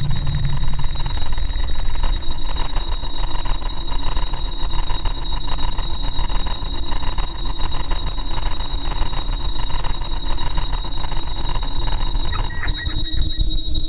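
Experimental noise soundtrack: a loud, dense rumbling drone with a steady high whine through it, shifting to a thinner texture with a new lower tone near the end.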